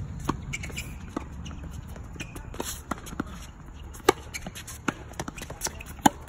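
Tennis rally on a hard court: sharp knocks of the ball off rackets and court, the loudest about four seconds in and just before the end, where the near player strikes a forehand, with lighter footsteps between.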